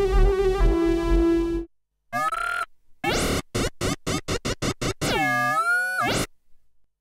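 Arturia MatrixBrute analog synthesizer playing a patch: a held note that stops short about a second and a half in, then after a gap a quick run of short staccato notes with sliding tones, and a longer note whose pitch dips down and bends back up before cutting off.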